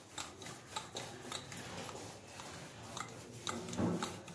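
Wooden rolling pin rolling out thin paratha dough on a marble counter: a faint rubbing with scattered light clicks and knocks.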